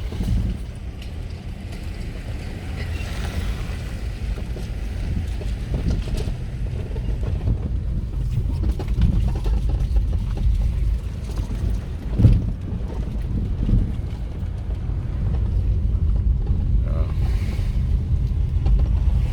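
Vehicle driving along a rough road: a steady low rumble with wind buffeting the microphone, and a brief thump about twelve seconds in.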